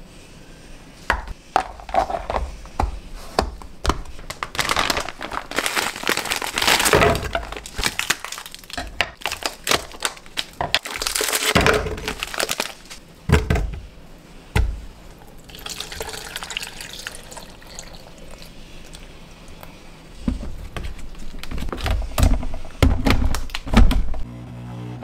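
Ingredients going into a blender jar, heard as a string of knocks, thunks and plastic rustling: fruit dropped in from a plastic bag and a plastic tub, with yogurt poured in near the end.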